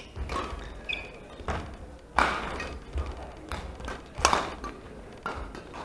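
Badminton rally: rackets striking the shuttlecock, with two loud hits about two and four seconds in among lighter taps, and short squeaks of court shoes on the hall floor.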